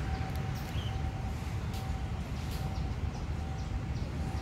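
Outdoor railway-platform ambience: a steady low rumble with short high bird chirps over it and a faint steady tone that breaks off and returns every second or so.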